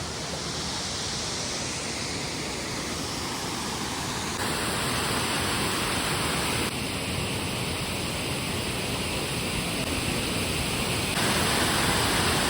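Waterfall's rushing water, a loud, steady hiss that steps abruptly louder or brighter three times, at about four, seven and eleven seconds in.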